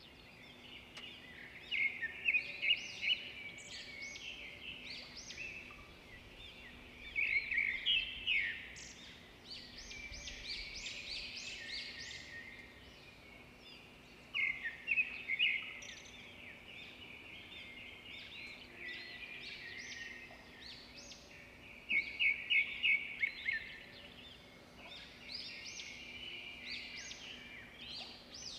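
Wild birds calling, many short chirps and rapid trilled runs of notes that come in several loud clusters. A faint steady low hum runs underneath.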